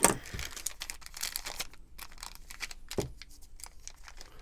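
Packaging crinkling and rustling as a pocket knife is unwrapped and taken out of its box, with a sharp knock at the start and another about three seconds in.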